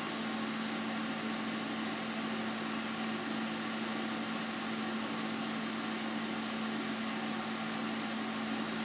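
Steady machine hum with a constant hiss.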